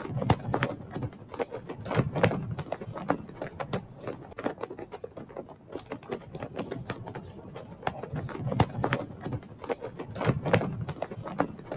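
Cloth flags flapping and snapping in the wind: a dense, irregular run of sharp cracks and flutters.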